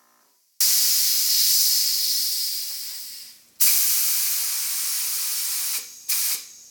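Harbor Freight Black Widow HVLP spray gun blowing compressed air with no paint, as it is tested for how much air it draws: a long hiss that fades away, a second hiss of about two seconds, then a short blast.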